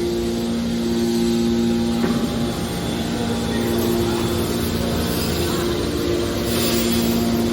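Hydraulic metal scrap baler running: a steady machine drone with two held low tones over a noisy hiss. The tones break off briefly about two seconds in, then return.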